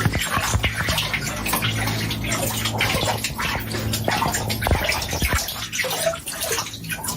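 Water splashing, with many small irregular drips and splashes over a steady low hum.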